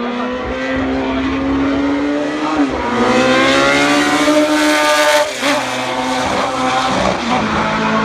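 Tyrrell P34's Ford Cosworth DFV V8 racing engine at full throttle, its pitch climbing and dropping sharply at upshifts about two and a half and five seconds in, with another dip near the end. It is loudest in the middle as the car passes.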